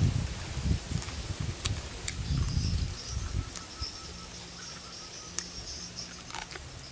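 Faint, steady insect buzzing. For the first few seconds there is uneven low rumbling underneath, and a few sharp clicks occur throughout.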